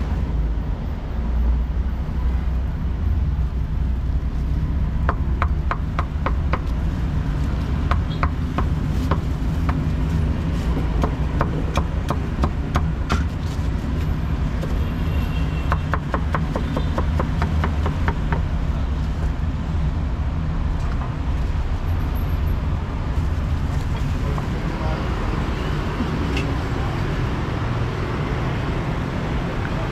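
Steady street traffic rumble, with several quick runs of sharp knocks from about five seconds in until about eighteen seconds in.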